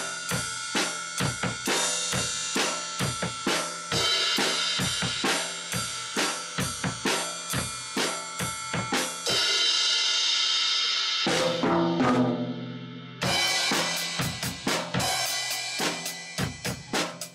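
Acoustic drum kit played in a steady rock beat of bass drum, snare and hi-hat. About nine seconds in, a long cymbal wash is followed by a short break of lower drum strokes, then the beat picks up again and stops near the end.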